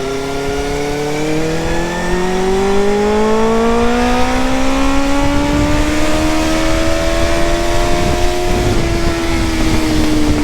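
Benelli 600 cc inline-four motorcycle engine accelerating hard in one gear, its pitch climbing steadily for about eight seconds, then easing off and falling slightly near the end.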